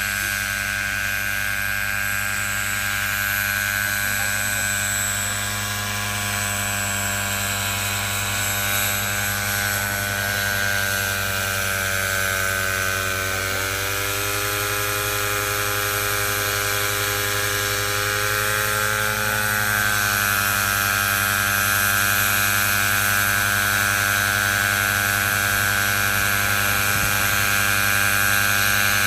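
Variable-pitch multicopter's rotors running, a steady many-toned hum that shifts in pitch about halfway through and again a few seconds later.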